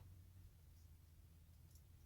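Near silence: a faint low hum of room tone with two faint clicks, one about a second in and one near the end.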